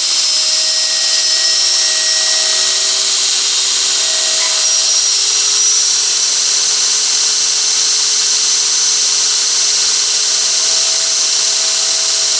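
Belt grinder's 2.2 kW electric motor running through a variable-frequency drive: steady motor and belt noise with a high-pitched whistle on top. A motor tone edges slightly upward over the first half, and the whistle steps up in pitch about five seconds in. The owner suspects the frequency converter for the whistle.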